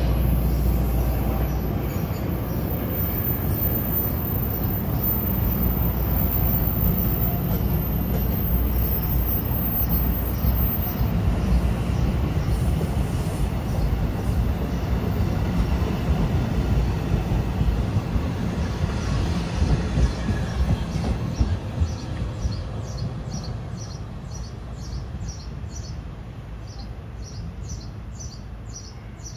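NJ Transit multilevel commuter train passing close by, a steady rumble of wheels on the rails that fades over the last several seconds as the rear cab car draws away.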